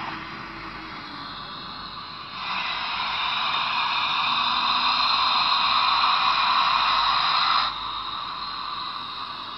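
Steam hiss from the Paragon 3 sound decoder of a Broadway Limited HO-scale Southern Pacific steam locomotive model, played through its small onboard speaker. A fainter hiss swells louder about two seconds in and cuts off suddenly about three-quarters of the way through, leaving a faint hiss.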